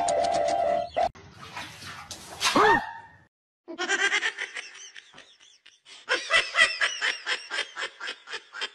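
A held electronic keyboard chord that cuts off about a second in. Then a short rising-and-falling cry, and after a brief gap a fast run of short, sharp yelps, several a second, to the end.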